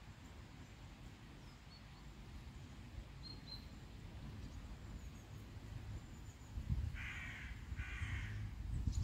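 A crow cawing twice in quick succession, about seven seconds in, over a low rumble, with a few faint small-bird chirps earlier.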